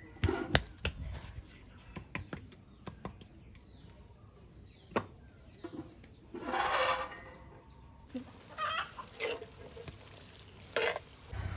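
Metal clinks and scrapes from an aluminium cooking pot, as its lid is lifted and set down and a spoon stirs thick pork fry inside. A louder rasping sound lasting about a second comes just past halfway.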